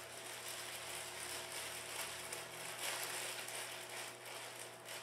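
Clear cellophane wrapping around a flower bouquet crinkling and rustling as it is handled, a string of irregular crackles.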